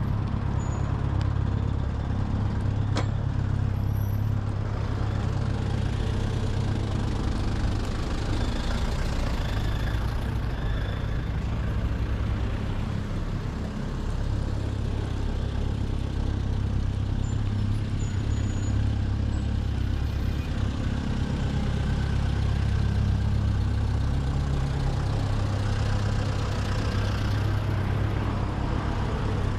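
Steady road traffic: motor vehicle engines running with a continuous low hum and tyre noise.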